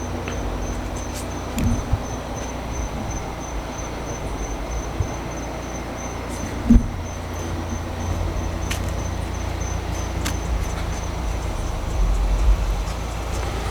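Steady low rumble of a car on the move, with soft thumps about a second and a half in and again near seven seconds. A faint high pulsing chirp runs under it.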